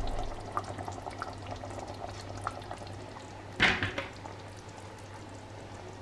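Thick beef goulash simmering in a stainless steel pot, with bubbles popping in quick succession. A single loud clunk comes a little past halfway, as the pot is handled on the counter, and the popping is fainter after it.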